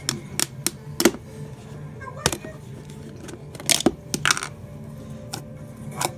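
Slime being pressed and squished by hand, giving about ten sharp, irregular clicks and pops, over a steady low hum.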